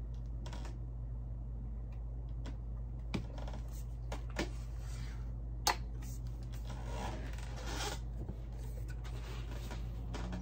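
Diana 48 side-lever spring air rifle being handled and loaded between shots: scattered clicks and rubbing of the action, with one sharp click a little past the middle. A steady low hum runs underneath.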